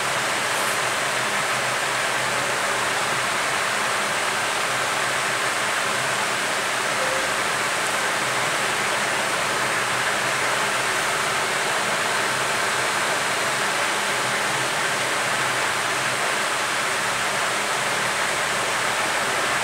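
Hot air rework gun blowing: a steady, even hiss that does not change.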